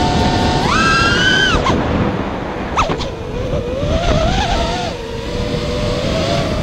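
FPV racing quad's Emax RS2205 2300kv brushless motors with 5-inch four-blade props whining under throttle. The pitch jumps up sharply about a second in as the throttle is punched, drops back, then wavers up and down with throttle changes.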